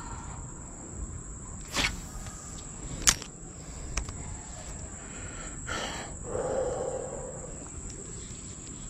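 Creekside ambience with a steady high-pitched insect drone, broken by a few sharp clicks from handling a spinning rod and reel and a short whirring rustle about six seconds in as the lure is worked.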